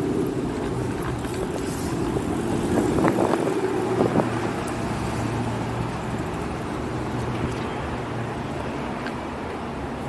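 Street traffic: a motor vehicle's engine running close by, with a steady drone that swells slightly around three to four seconds in and then eases off.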